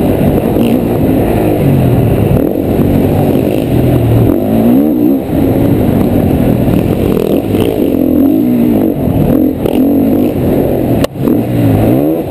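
Honda CRF450's single-cylinder four-stroke engine at race speed, heard on board, revving up and easing off again and again through the track. Near the end the sound drops out sharply for a moment, then picks up again.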